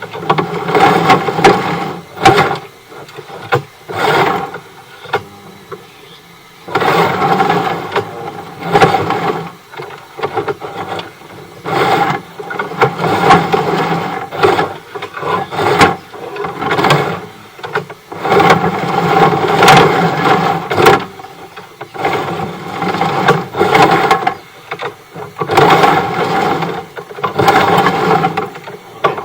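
Sewer inspection camera's push cable being fed down the drain line, a mechanical rattling whir in repeated bursts of a second or two with short pauses between.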